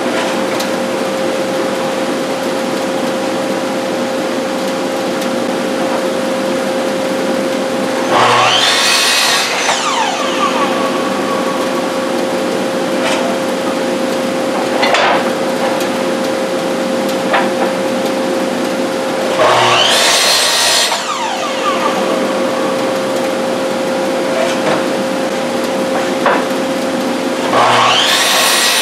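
A miter saw cutting oak boards three times. Each cut is a burst of saw noise ending in a falling whine as the blade winds down. A steady machine hum with a constant tone runs underneath throughout.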